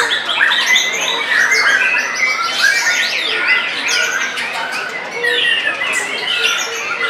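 White-rumped shamas (murai batu) singing in competition: dense, overlapping song from several caged birds at once, fast whistled notes and quick rising and falling glides with no pause.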